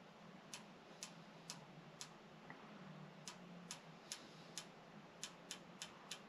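Elevation adjuster of a Pinty red/green dot sight being turned with a small tool, giving about a dozen faint detent clicks roughly two a second, with a short pause near the middle, as the dot is dialed down to bring the shots lower.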